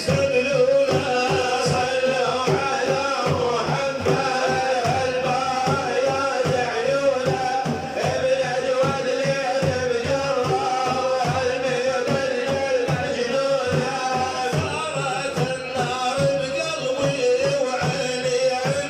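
A man singing an Arabic Sufi devotional praise song for the Prophet in long, ornamented held notes over a steady drum beat.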